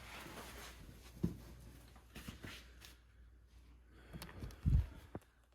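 Scattered knocks and clatter of metal parts and tools during work on a Chrysler 8.25 rear axle's pinion: a sharp knock about a second in, a few light clicks, and a heavier thud near the end.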